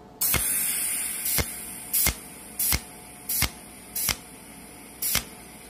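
Cold welding machine pulse-welding an iron tube, a sharp crackling zap with each of seven pulses, about one every 0.7 seconds, over a steady hiss that starts just after the beginning.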